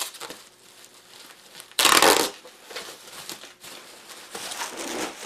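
Bubble wrap rustling and crinkling under hands, with one loud half-second rip about two seconds in as packing tape is peeled off the wrap.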